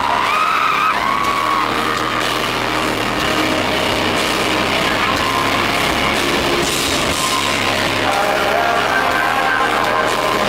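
Live pop music playing loudly through a concert sound system, heard from within the audience, with fans yelling and whooping over it.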